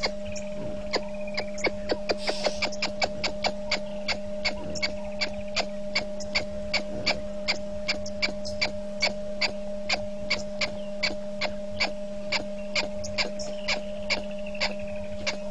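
Steady electrical mains hum in the live-cam audio feed, with sharp regular clicks at about three a second.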